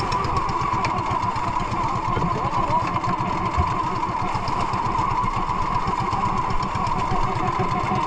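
Small engine of a motorized outrigger boat running steadily underway, a fast, even engine beat with no change in speed.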